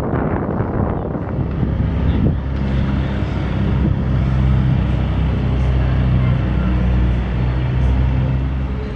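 Wind rumbling on the microphone, then from about two seconds in a steady low engine-like drone that holds and drops away near the end.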